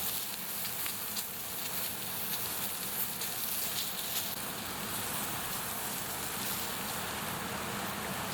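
Bonfire crackling, with scattered sharp pops over a steady sizzling hiss.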